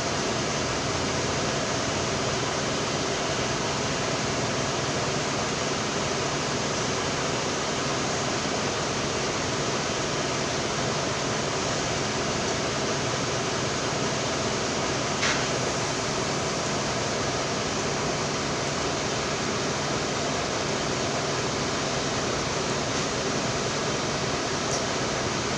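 Steady whooshing air noise with a faint hum, like a running fan, with one sharp click about fifteen seconds in.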